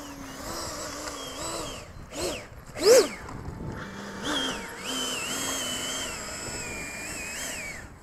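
Electric ducted fan of a Freewing F-104 model jet whining at low power while taxiing, its pitch stepping and gliding up and down with the throttle. It has two quick, sharp revs about two and three seconds in.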